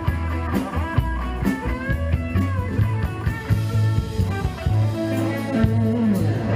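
Live rock band music: an electric guitar plays bending lead lines over a steady bass line and drums.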